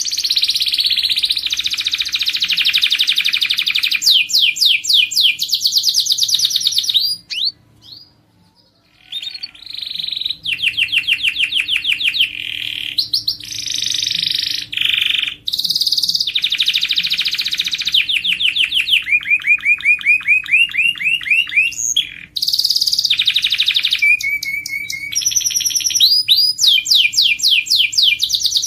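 Domestic canary singing: fast, high trills and rolls of rapidly repeated notes, changing from one phrase to the next, with a pause of about two seconds roughly a third of the way in.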